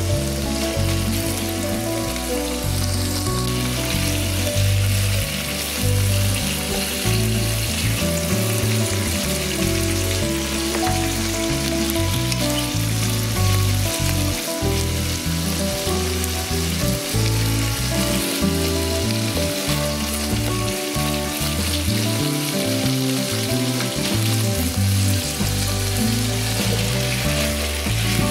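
Chicken thigh pieces sizzling steadily as they fry in oil in a frying pan, stirred now and then. Background music plays along with it.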